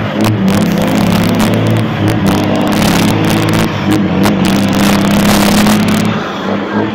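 Heavy diesel dump truck engine running loud at close range, with many short sharp cracks on top until about six seconds in.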